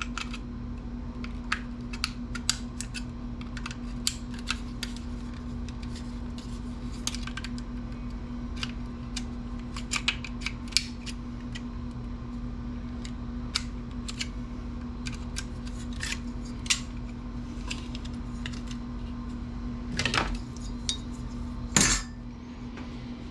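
Irregular small clicks and metallic clinks of a desktop computer's metal chassis and parts being handled during teardown, over a steady low hum. Two louder, longer clatters come near the end.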